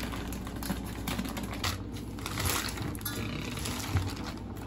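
Plastic bag crinkling and rustling with irregular crackles as a large frozen whole fish is handled and slid out of it. A short, soft knock about four seconds in.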